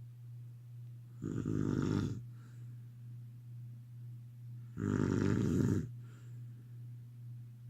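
Snoring: two long snores, each about a second, about three and a half seconds apart, over a steady low hum.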